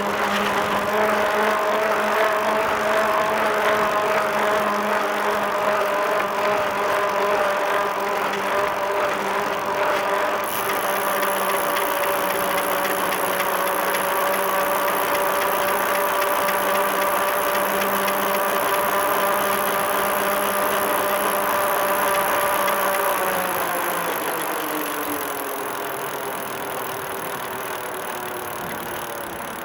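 Bicycle riding at speed: a steady whirring hum from the wheels and tyres. About three-quarters of the way through, the pitch glides down and the sound fades as the bike slows.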